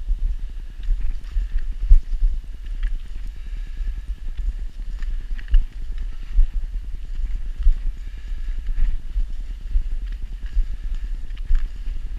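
Footsteps on a snowy road heard through a body-worn action camera: a steady run of low thumps, with faint crisp ticks above them.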